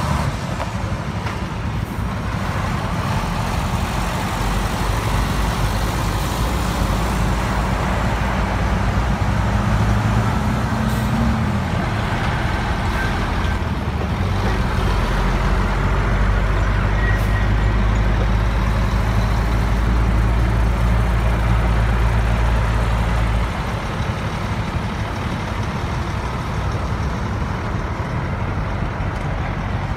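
Loaded heavy diesel dump trucks driving past one after another, engines running under load. The engine sound is heaviest from about halfway through and drops suddenly about three-quarters of the way in.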